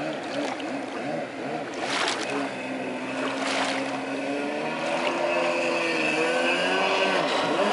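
Kawasaki X2 stand-up jet ski's two-stroke engine running hard across the water, its pitch rising and falling with the throttle and growing louder as the craft approaches.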